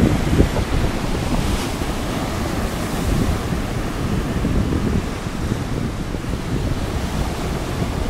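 Rough surf breaking and washing up a sandy beach in a continuous roar, with wind buffeting the microphone. One wave's hiss swells louder about a second and a half in.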